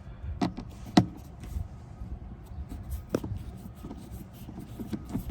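A few sharp clicks and knocks with smaller ticks between them, the loudest about a second in: plastic trim parts and screws handled while reinstalling interior panels.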